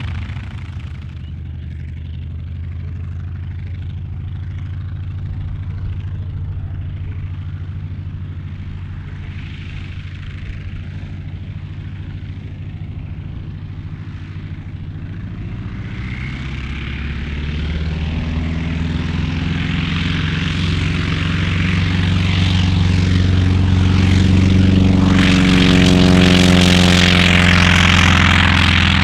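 North American T-28 Trojan's radial engine and propeller running at low power, then growing steadily louder over the second half as the aircraft draws near and passes.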